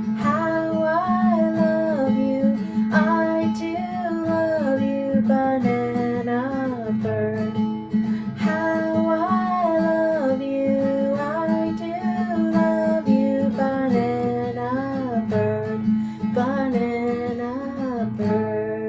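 A woman singing a simple children's song over a strummed acoustic guitar, ending with a fade near the end.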